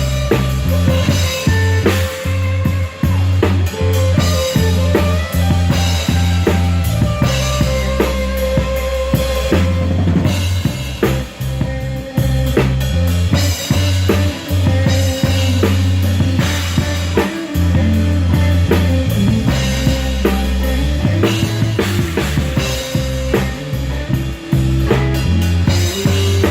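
Live band playing an instrumental passage without vocals: a drum kit keeps a steady beat with bass drum, snare and rimshots, an electric bass holds long low notes that change every second or two, and a guitar sustains notes above.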